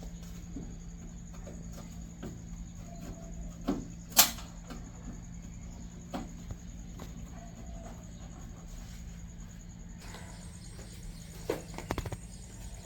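Scattered light clicks and knocks, the loudest a sharp click about four seconds in and a small cluster near the end, over a steady low hum and a faint high whine.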